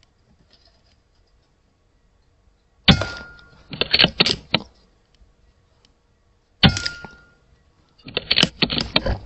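Two shots from an Airmaks Krait L .22 PCP air rifle, a little under four seconds apart. Each is a sharp crack with a brief ringing tone after it. About a second after each shot comes a quick run of sharp metallic clicks and clacks as the action is cycled for the next pellet.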